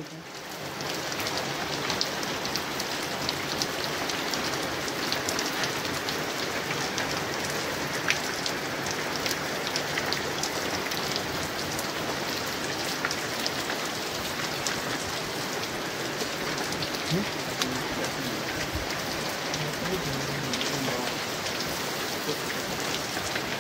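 Steady rain falling on hard surfaces, a continuous hiss dotted with many small drop ticks.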